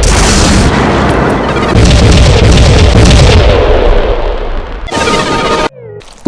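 Loud explosion booms and deep rumble running together without a break, which cut off suddenly near the end.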